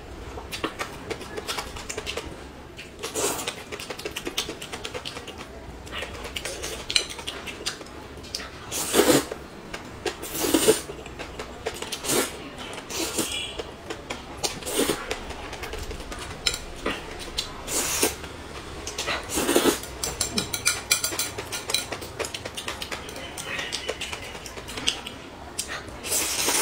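Close-miked eating sounds: noodles slurped up and chewed in short, irregular bursts, with chopsticks clicking against a plate.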